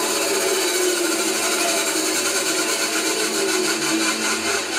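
Delta 9-inch benchtop bandsaw running steadily with its upper blade guide raised all the way to the top, where the blade is engaging the guide bearing and setting it spinning, so a bearing noise runs along with the saw. The owner treats it as a side effect of the guide being maxed out at the top, which dropping the guide half an inch cures.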